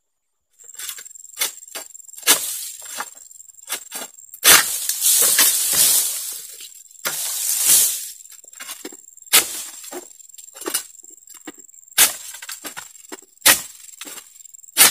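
Oil palm fronds being pruned with an egrek, a sickle blade on a long pole: many sharp cracks and snaps as the blade cuts into the frond stalks, and several louder rustling crashes of fronds coming down through the leaves.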